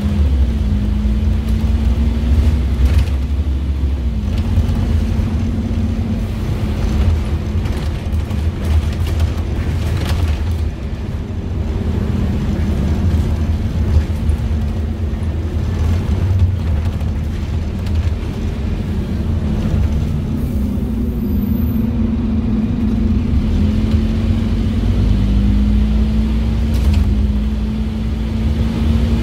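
On board a Scania N230UD OmniCity double-decker bus under way: its Scania DC9 diesel engine, a nine-litre five-cylinder, and ZF Ecomat 5HP500 automatic gearbox running. A heavy low rumble with a droning note that dips and rises in pitch several times as the bus pulls along.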